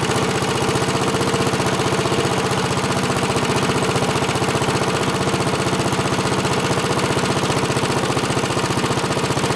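Briggs & Stratton single-cylinder lawn mower engine idling steadily, just after starting.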